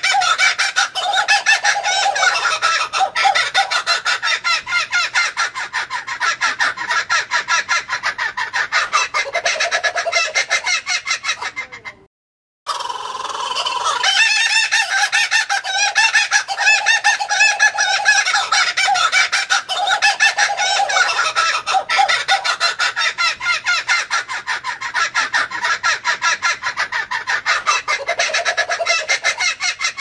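Laughing kookaburra's laughing call: a long run of rapid, rolling notes. It breaks off for about half a second around twelve seconds in, then starts up again.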